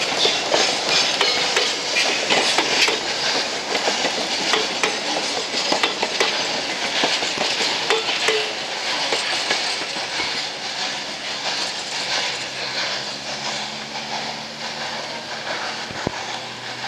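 Black Hills Central steam excursion train rolling past, its wheels clicking and clattering over the rail joints. The sound fades gradually over the last several seconds as the train moves away.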